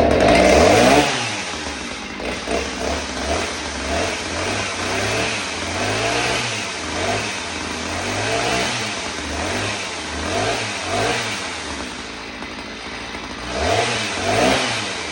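Stihl 029 Farm Boss two-stroke chainsaw engine running and being revved over and over, its pitch rising and falling about once a second, as the freshly fitted bar and chain are tried out. The revs are highest in the first second and again near the end.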